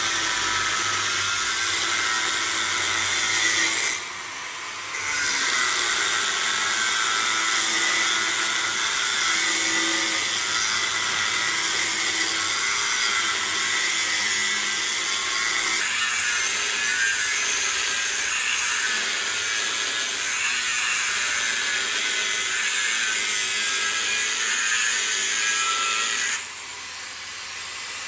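Angle grinder with a cut-off disc cutting through the steel shell of an LG hermetic refrigerator compressor: a steady high whine with grinding. It eases off briefly about four seconds in and drops away near the end.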